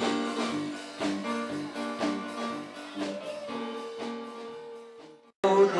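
Live band music: an instrumental passage on keyboards with chords pulsing about three times a second, fading out about five seconds in. Then an abrupt cut into another live song starting loud.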